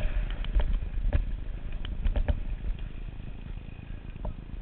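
Mountain bike rattling and clacking over a rough dirt trail, with a sharp knock every so often, over a steady rumble of wind on the helmet-mounted microphone. The sound fades a little in the second half.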